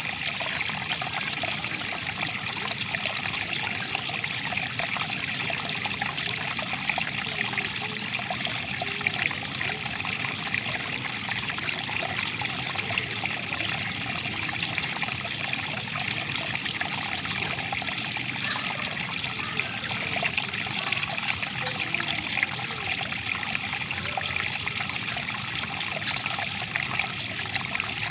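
Water flowing and trickling over stones in a stream, a steady babbling splash.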